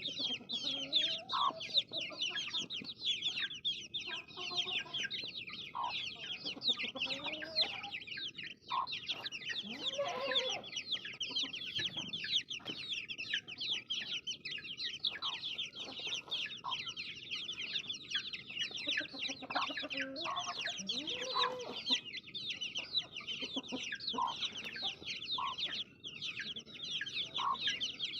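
Many baby chicks peeping at once: a dense, continuous chorus of short high chirps that each fall in pitch, with lower calls scattered through it.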